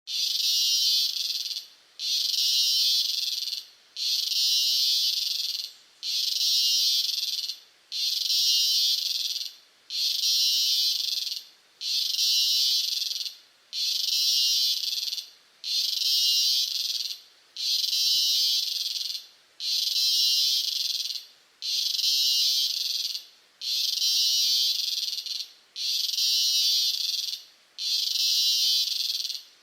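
A cicada calling at close range: a high-pitched buzz repeated in even pulses about a second and a half long, roughly one every two seconds, with short gaps between.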